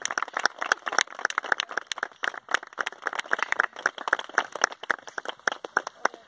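Scattered applause from a small group of onlookers: a dense, irregular patter of hand claps, several a second, with a few brief voices among them.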